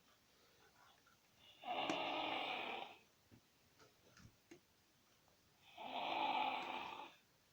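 A toddler snoring: two long snores about four seconds apart, each lasting over a second, with a few faint clicks in between.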